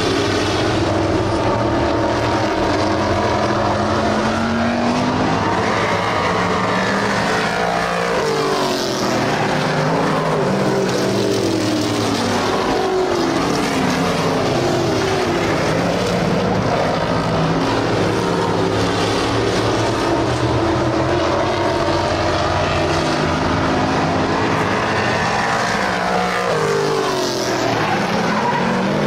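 A pack of dirt-track race cars running laps, several engines revving up and down together. Their pitch sweeps up and down as they pass, most plainly about a quarter of the way in and again near the end.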